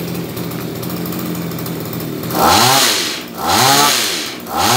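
Small two-stroke engine of a Komatsu BC2310 pole hedge trimmer idling steadily, then revved three times in quick succession in the second half, each rev rising and falling back.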